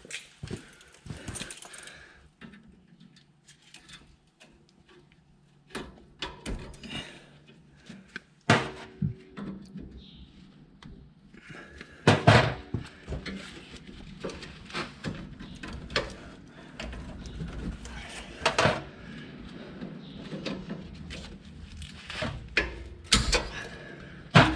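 Irregular metal clanks, knocks and rattles of hand tools and parts being handled during work on a truck, with the sharpest knocks about a third of the way in, about halfway, and about three quarters of the way in. A faint low hum sits underneath for the first third.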